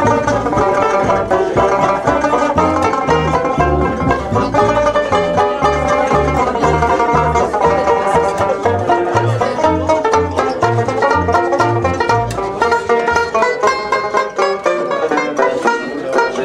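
Two banjos playing a lively tune of quick plucked notes, with a plucked double bass keeping an even beat underneath. The bass drops away for the last couple of seconds.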